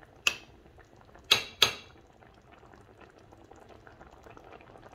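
Beef kidney stew in tomato sauce boiling in a pot, a faint, steady bubbling. There are three sharp clinks of cookware in the first two seconds, the last two loudest and close together.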